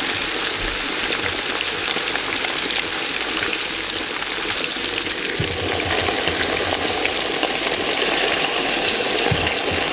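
Chicken halves sizzling steadily in hot oil and butter in a cast-iron kazan, a dense even crackle of frying. Near the end there are soft low knocks as a steel bowl of water is set on the chicken as a press.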